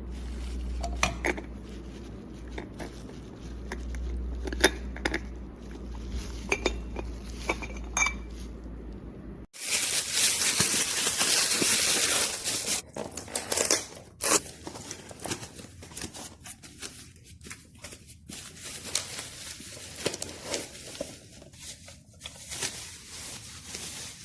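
Aluminium moka pot being handled, with light metallic clinks and knocks of its parts. About ten seconds in, a loud rushing noise lasts about three seconds, followed by more scattered clinks.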